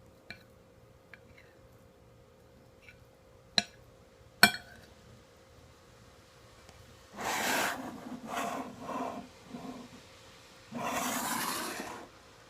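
Handling noises at a meal table: a few sharp clicks, two of them loud, then three stretches of rough scraping or rustling, the last about a second long.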